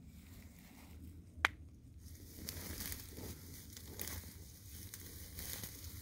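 Short-beaked echidnas rustling and crunching through dry grass and leaf litter as they forage, with one sharp click about a second and a half in.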